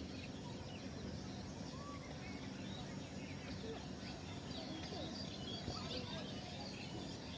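Many small birds chirping at once, short scattered calls over a steady low background rumble.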